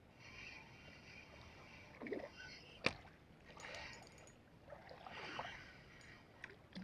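Faint, irregular water splashing as a hooked mackerel thrashes at the surface, with one sharp click about three seconds in.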